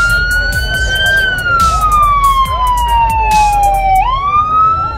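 Police car siren wailing: the pitch climbs a little, falls slowly for about three seconds, then sweeps quickly back up about four seconds in.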